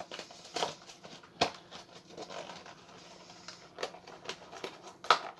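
Pokémon card collection box being handled and opened: scattered sharp clicks and taps over light crackling of cardboard and plastic packaging.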